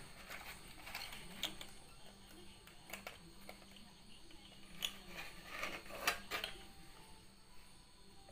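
Thin clear plastic drink bottle, cut into a trap and pierced with wooden skewers, handled in the hands: irregular crinkles and clicks, the loudest cluster about six seconds in.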